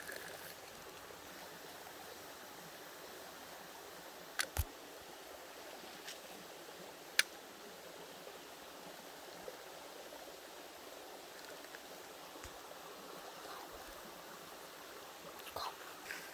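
Creek water running steadily, with a pair of sharp clicks about four seconds in and another a few seconds later.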